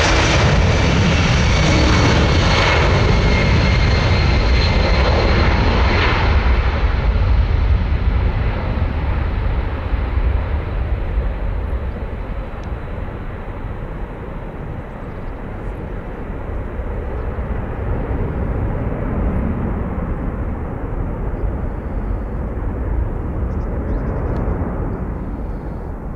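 Boeing C-17 Globemaster III's four Pratt & Whitney F117 turbofans at take-off power: a loud jet rumble with a high whine that drops slightly in pitch and fades over the first seven seconds or so. A steady low rumble remains as the aircraft climbs away, easing near the end.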